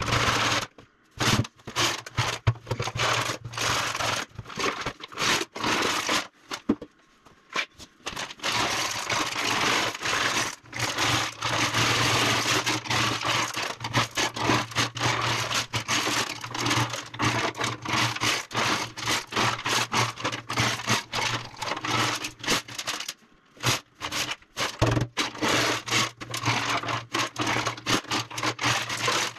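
Rapid, repeated scraping on the generator's gas tank while it is being restored, over a steady low hum, broken by a few short pauses.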